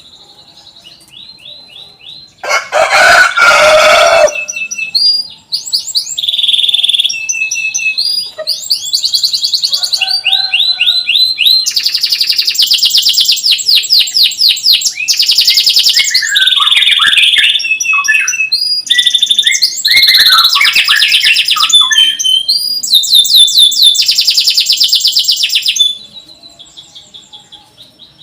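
Domestic canary singing a long song of rapid trills, each run of quick repeated notes changing to the next every second or two. A harsh, buzzy note comes about three seconds in. Soft repeated chirps lead into the song and follow it near the end.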